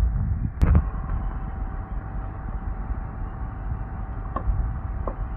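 Spiced tomato-onion masala being stirred in a frying pan with a spoon, over a steady low rumble, with one sharp knock of the spoon on the pan about half a second in and two light taps near the end.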